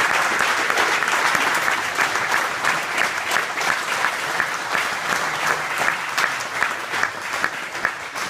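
Crowd applauding: dense clapping that thins out after the middle into fewer, separate claps.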